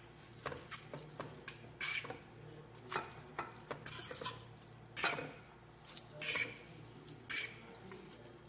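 A fork scraping and clinking against a nonstick frying pan as a mound of cooked instant noodles is stirred and tossed, in irregular strokes one or two a second.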